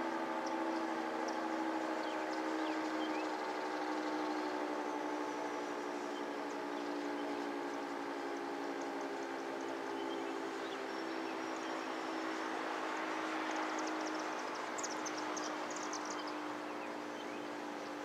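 Federal Signal 3T22 three-phase rotating two-tone outdoor warning siren winding down after its attack signal: a chord of siren tones sinking slowly in pitch and fading. A few faint bird chirps come in near the end.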